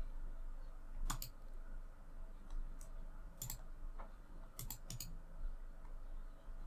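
Scattered clicks of a computer mouse, about a dozen, several in quick pairs like double-clicks.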